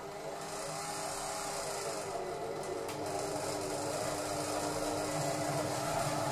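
Silvercrest Monsieur Cuisine Connect food processor running its kneading function on bread dough, the motor whirring steadily with a slightly wavering pitch.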